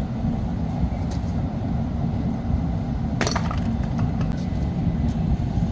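One sharp crack of firewood being split, about three seconds in, with a faint knock near the start, over a steady low rumble.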